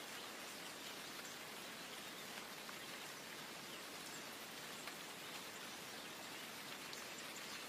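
Steady light rain falling: a soft, even hiss with faint, scattered drop ticks.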